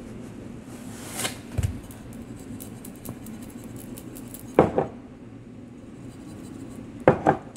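Salt being stirred and scraped with a utensil inside a glass jar, a dry gritty scratching, with several knocks of glass jars set down on the counter, the loudest a little after halfway and near the end.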